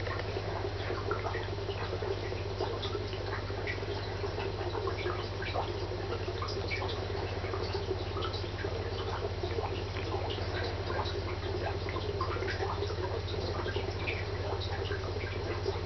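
Aquarium equipment running: a steady low hum with many small, irregular ticks and drips of moving water and bubbles.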